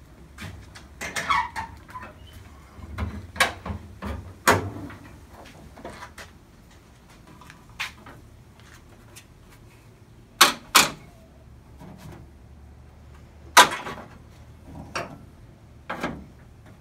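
Clanks and knocks of a 1985 Ford Mustang GT's hood being released, raised and propped open. A string of separate sharp metallic knocks, the loudest two in quick succession just past the middle and another about two-thirds through.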